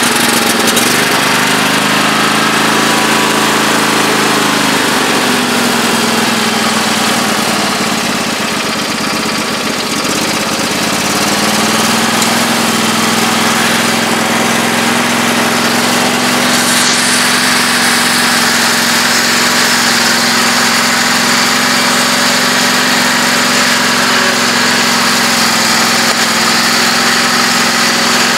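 Husqvarna YTH2448 riding mower engine running just after a cold start on choke and part throttle. Its speed sags about five seconds in, picks back up about twelve seconds in and then holds steady. The governor is one the owner says he adjusted wrong.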